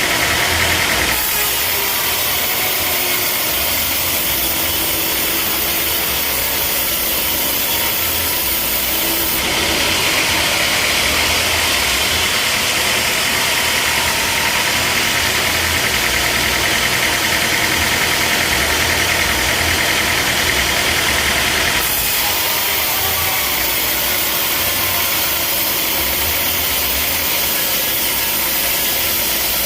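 Sawmill running: a steady engine note, overlaid by a loud hiss. The hiss drops out about a second in, comes back around ten seconds in, and stops again about twenty-two seconds in.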